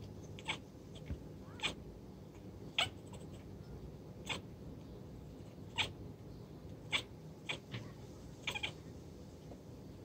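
House cat chirping and chattering at birds through a window screen: a series of short, sharp chirps at uneven intervals. This is the excited prey-watching sound cats make at birds they can see but cannot reach.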